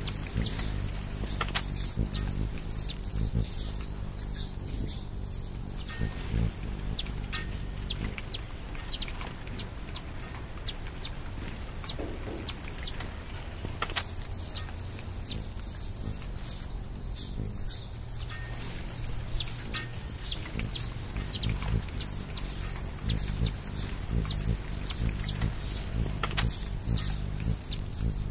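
Insects trilling steadily at a high pitch, breaking off twice for about two seconds, with scattered short bird chirps.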